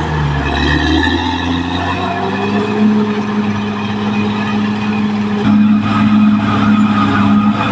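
Caterpillar D6R XL bulldozer's diesel engine running steadily while working. Its pitch dips briefly near the start, and the sound shifts about two thirds of the way through.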